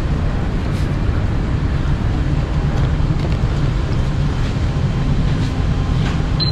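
Steady low rumble of a moving vehicle heard from inside the cabin.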